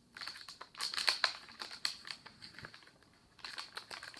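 Plastic packaging of a toy blind bag crinkling and rustling as it is handled and torn open, in two spells of crackling with a short lull about three seconds in.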